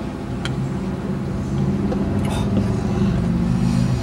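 Car engine idling, heard from inside the car: a steady low hum.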